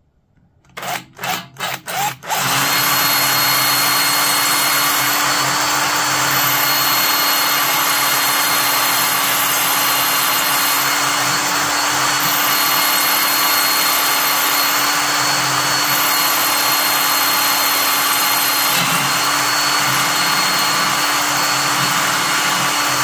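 Hand-held power drill boring into the brass barrel of a Honda GL1000 steering stem lock: a few short trigger bursts about a second in, then steady continuous drilling, with a brief hitch a few seconds before the end.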